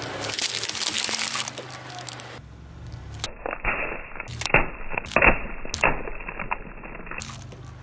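A car tyre rolling over small plastic bottles of red liquid and crushing them. A crackling hiss comes first. Then, from about three and a half to six seconds in, comes a run of sharp cracks and pops as the bottles burst, the loudest just past five seconds.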